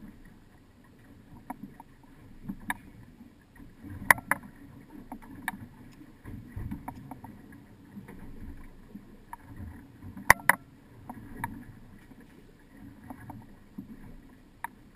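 Fishing boat rocking at sea: a steady low rumble of the hull on the water, with sharp knocks and clicks now and then, the loudest in quick pairs about four and ten seconds in.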